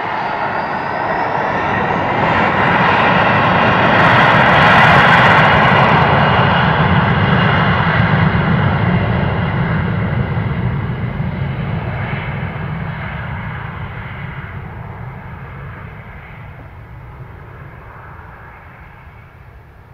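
Embraer regional jet's GE CF34 turbofan engines at takeoff power: a roar with a whine that grows to a peak about five seconds in, then fades steadily as the plane climbs away.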